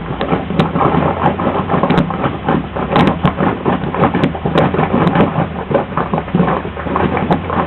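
An engine idling steadily, with a low hum under a dense rushing noise.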